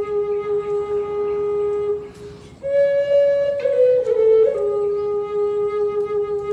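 Native American flute in G Aeolian playing a long, held low note. About two seconds in there is a short breath, then a higher note that steps down in a few quick notes and settles back on the low note, which is held again.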